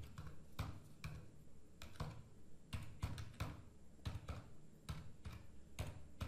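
Faint, slow, uneven typing on a computer keyboard, about three keystrokes a second.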